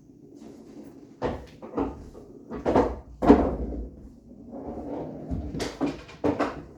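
Pool balls knocking and clacking on a bar-box pool table: a string of separate hard knocks, the loudest about three seconds in, with a quick cluster near the end.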